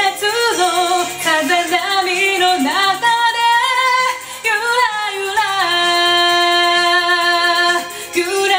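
A woman singing a Japanese pop ballad over a karaoke backing track, moving through several short notes and then holding one long note from a little past halfway, with a brief break for breath near the end before the next note.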